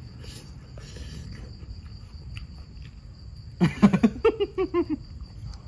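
Crickets chirring steadily in a night-time garden. About three and a half seconds in, a man's voice gives a short run of quick pulses that fall in pitch, louder than the insects.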